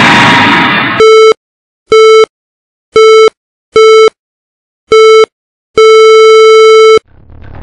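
TV static hiss for about a second, then film-leader countdown beeps: five short identical beeps about once a second, then a final beep held for about a second.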